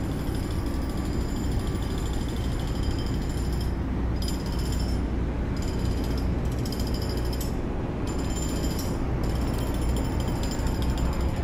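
Steady machinery hum with a rough mechanical rattle, and a thin high whine that cuts out and returns several times.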